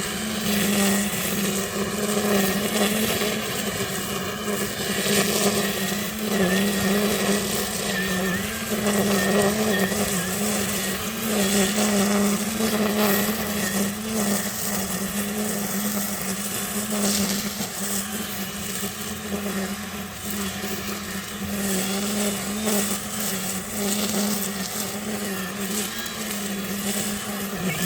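EGO 56-volt battery multi-tool with its string trimmer head running steadily, its electric motor whining at a constant pitch with a dense hiss from the spinning line cutting through overgrown grass; the pitch wavers slightly as the line meets the grass.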